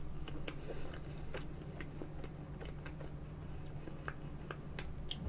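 Close-miked chewing of a spoonful of soft tiramisu: quiet wet mouth sounds with many small lip and tongue clicks, over a steady low hum.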